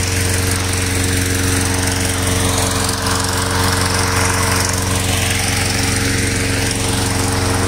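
Petrol-engined inflator fan running steadily at a constant speed, blowing air into a hot air balloon envelope during cold inflation: a loud engine hum under a broad rush of moving air.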